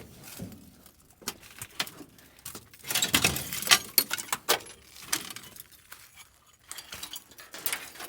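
Loose metal scrap being handled: a run of quick metallic clinks, rattles and knocks, thickest around the middle.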